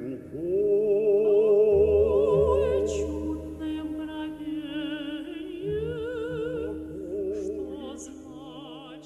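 Operatic-style singing: long held notes with a wide vibrato over a sustained accompaniment, growing quieter toward the end.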